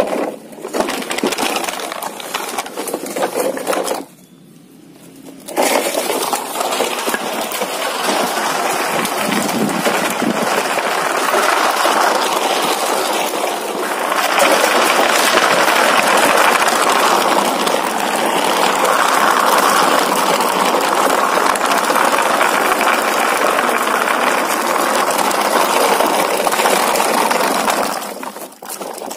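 Large plastic toy dump truck dragged along the ground on a string, its hard plastic wheels and body rattling and scraping over concrete and grit. The rattling stops for about a second and a half near four seconds in, then carries on steadily.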